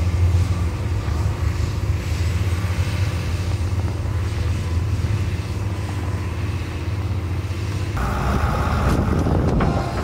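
Diesel engine of a Case wheel loader running steadily as it pushes snow. The sound changes abruptly about eight seconds in, with more mid-range noise.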